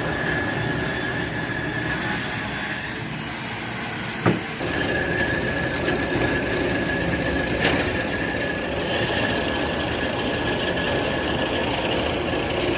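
Sawmill machinery running: a steady high whine over a metallic clatter, with a hiss for a couple of seconds and a single sharp knock about four seconds in.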